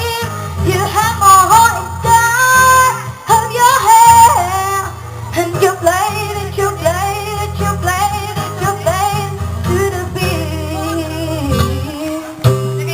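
A song with a sung melody and heavy bass, played loud through a mobile DJ sound system.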